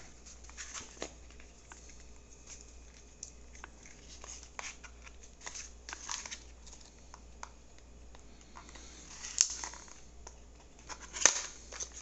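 Packaging and small lock hardware being handled: light rustling and scattered small clicks, with two louder rustles near the end.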